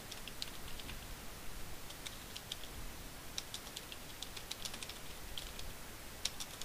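Typing on a computer keyboard: sharp key clicks in short, irregular runs, with brief pauses between them.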